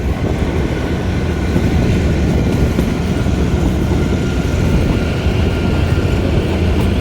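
Kalka–Shimla narrow-gauge toy train running, heard from on board: a steady rumble and rattle of the carriage on the track, with a faint thin steady whine above it.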